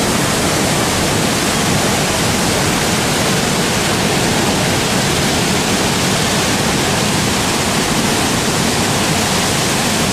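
Loud, steady rush of a large waterfall pouring into its churning plunge pool, an unbroken full-bodied noise of falling water.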